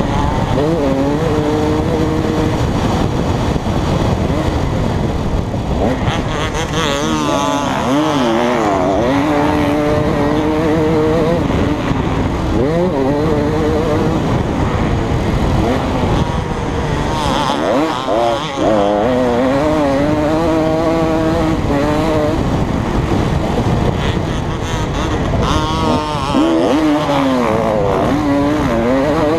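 KTM 250 SX two-stroke motocross engine revving hard through the gears, its pitch climbing and falling again and again as the rider accelerates, shifts and backs off around the track. A steady rush of wind and track noise sits under it.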